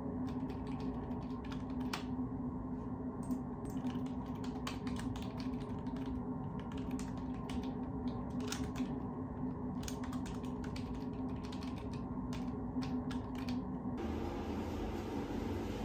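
Typing on a computer keyboard: rapid, irregular key clicks over a steady low hum. The typing stops abruptly near the end, where the background noise changes.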